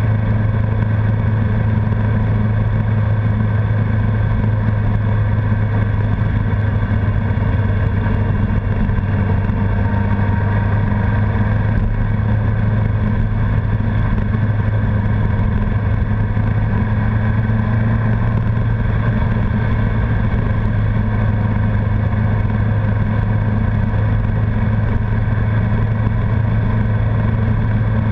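Honda CBR1100XX Blackbird's inline-four engine running at a steady cruise while the bike is ridden at constant speed, its pitch holding level throughout.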